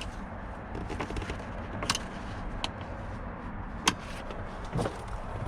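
A few light clicks and taps of hand tools and parts being handled, the sharpest about four seconds in, over a steady background hiss.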